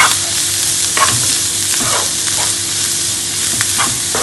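Rice and vegetable stuffing sizzling in a frying pan while a wooden slotted spatula stirs it, scraping through the food about once a second over a steady frying hiss.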